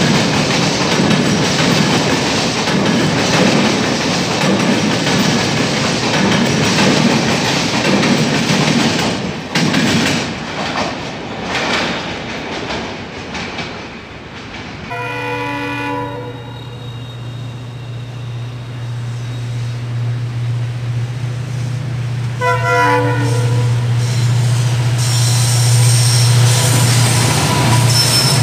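Passenger coaches clattering over the crossover points at speed, the clatter fading away about halfway through. Then a diesel locomotive's horn sounds two short chord blasts several seconds apart, over the low drone of its engine, which grows louder as the WDP4B locomotive approaches.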